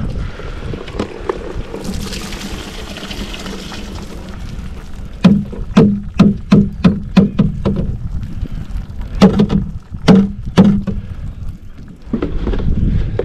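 Whitebait being tipped from a plastic scoop into a bucket. First a short wash of pouring and splashing, then two runs of sharp knocks, about three a second, as the scoop is rapped against the bucket to shake the catch out.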